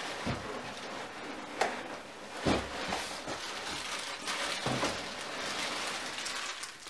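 A blender being unpacked from its box: several dull knocks and bumps with some rustling of packaging, over a steady background hiss.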